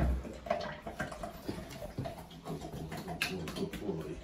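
Wet Alaskan malamute puppy's paws padding and scrabbling on the floor of an empty bathtub. A dull thump right at the start, then scattered light taps.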